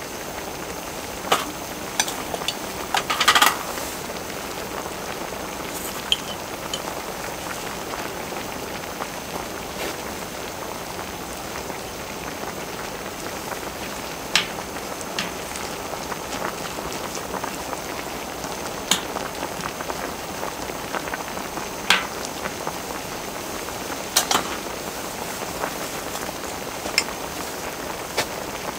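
Kimchi and pork stew boiling hard in a wide cast-iron cauldron-lid pan: a steady bubbling hiss with a few brief sharp pops scattered through it.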